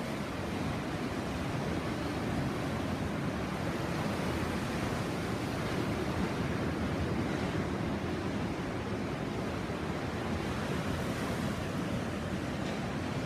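Sea surf washing steadily onto the shore, with some wind on the microphone.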